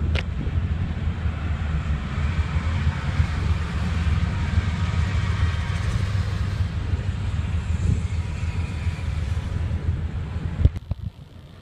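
Steady low road rumble inside a moving car's cabin. Near the end there is a sharp knock, and after it the sound drops away to much quieter.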